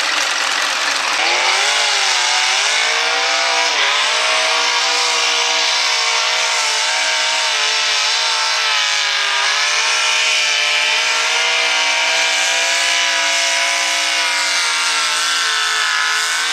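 V8 engine of a hot-rod pulling tractor running at high revs under load as it drags the weight-transfer sled. The pitch climbs over the first few seconds, then holds high and fairly steady.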